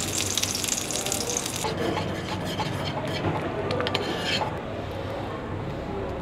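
Kitchen cooking sounds: a bright hissing for about the first second and a half, then scattered clicks and scraping that die down after about four seconds.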